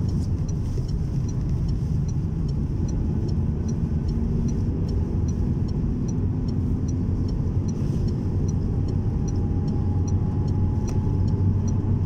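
Steady low rumble of a car driving on a snow-covered road, heard from inside the cabin: engine and tyre noise with the blizzard's wind against the car, and a faint regular ticking throughout.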